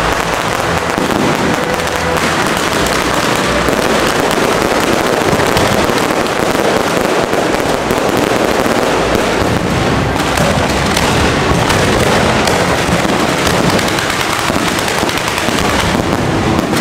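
Aerial fireworks firing in a dense, continuous barrage: shells bursting and crackling one after another without a pause.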